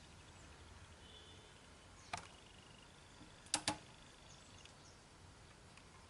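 Three light, sharp clicks from screwdriver and screw handling on a DVD home cinema unit's chassis: one about two seconds in, then a quick pair a second and a half later, over a quiet background.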